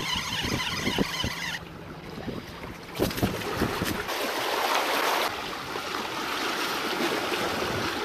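Wind buffeting the microphone over the wash of the sea, with gusty low thumps; the noise changes abruptly several times.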